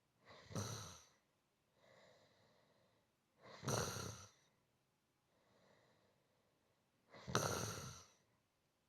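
A person snoring: three snores about three and a half seconds apart, each lasting about a second, with fainter breaths between them.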